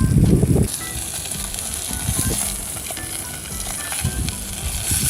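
Food sizzling in a hot pan, a steady frying hiss. It begins after a loud low rumble in the first moment.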